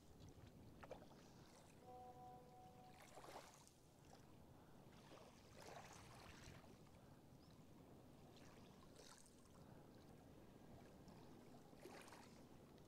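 Near silence: faint outdoor background with a few soft rustles, and a brief faint tone about two seconds in.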